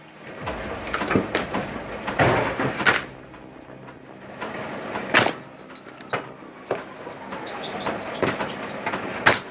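Homemade log splitter working through logs: irregular sharp knocks and cracks, about seven of them, over a rough mechanical clatter.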